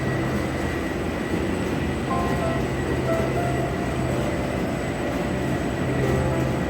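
Steady mechanical din of an avocado packing plant's conveyor and size-sorting machinery running, with a constant hum.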